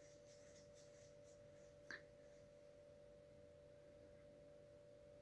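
Near silence: a faint steady high hum on the recording, with one faint click about two seconds in.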